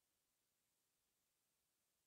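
Near silence, with only a faint steady hiss.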